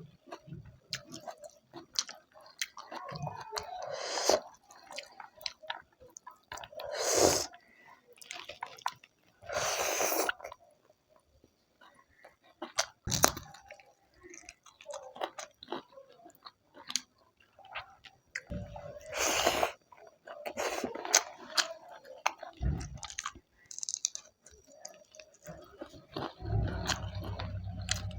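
A person chewing a mouthful of food close to the microphone, with many small mouth clicks and several louder sounds about a second long. A low hum comes in near the end.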